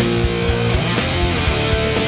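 Rock music with electric guitar over a steady beat; the guitar line dips in pitch and climbs back about a second in.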